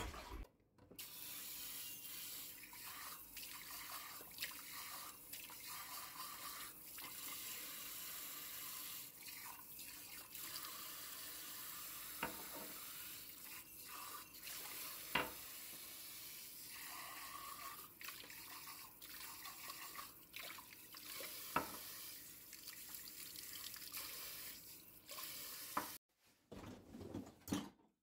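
Kitchen tap running steadily into the sink while dishes are rinsed, with a few sharp clinks of dishes. Near the end the running water stops and a brief clatter of dishes follows.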